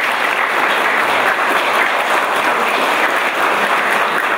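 Audience applauding, many hands clapping at once in a dense, steady stream.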